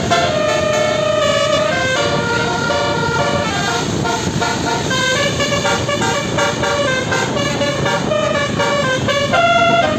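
Basuri 12-note 'telolet' bus air horn playing a tune without a break. The tone steps from note to note every second or so.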